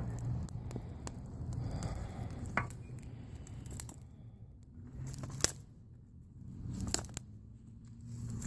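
Footsteps of leather Sperry Top-Sider boat shoes on grass and gravel: soft scuffs and crunches, with a few sharper clicks.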